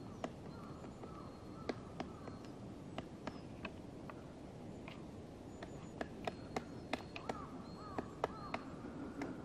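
Black woodpecker chiselling into a tree trunk: single sharp knocks of its bill on wood, irregularly spaced and coming closer together from about six seconds in.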